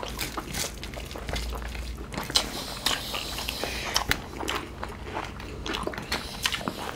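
Close-up eating sounds from two people eating with their hands: chewing and wet mouth smacks, with fingers mixing food on steel plates, a scatter of small irregular clicks over a low steady hum.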